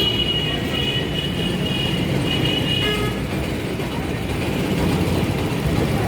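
Steady motor-vehicle running noise, a continuous low rumble, with a thin high tone coming and going through the first half.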